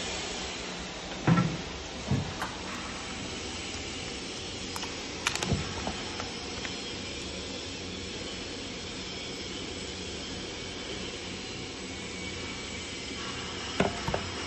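Knocks and clicks from a table-top chamber vacuum packing machine and its sealed pouch: a sharp knock about a second in as the chamber lid comes up, then clicks as the vacuum-sealed plastic pouch is handled, and two more knocks near the end. A steady hum lies underneath.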